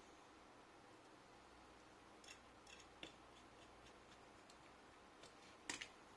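Faint scattered clicks and light taps, with a louder double click near the end, from small laptop parts being handled.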